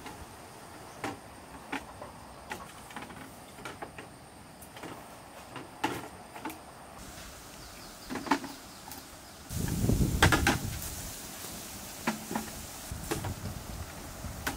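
Green bamboo poles knocking and sliding against each other as they are laid side by side on a bamboo platform frame: scattered light knocks, and a louder, longer clatter about ten seconds in.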